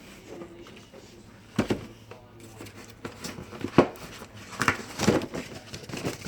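Dogs chewing and crunching food, heard as irregular sharp clicks and knocks, busier in the second half.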